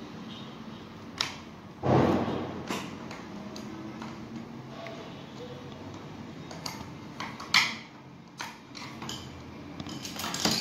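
Small metal hand tools and the plastic housing of a steam iron being handled during reassembly with a screwdriver: scattered clicks and light knocks, with a heavier thump about two seconds in.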